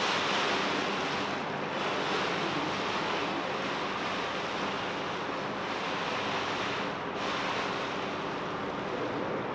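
Crinkly plastic cellophane sheets rustling continuously as they are crumpled and shifted on an overhead projector, with a brief lull about seven seconds in.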